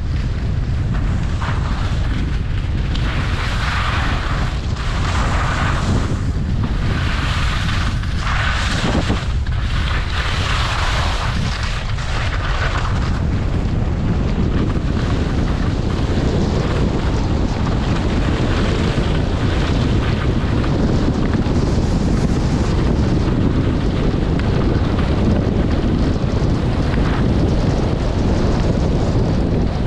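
Wind rushing over the microphone of a skier moving downhill, a steady low rumble throughout. Over it, skis hiss and scrape across soft spring snow in repeated surges for the first dozen seconds or so, one with each turn.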